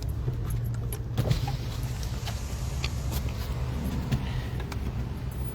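Car engine idling, heard inside the cabin as a steady low hum, with scattered light clicks and a sharper knock about a second in.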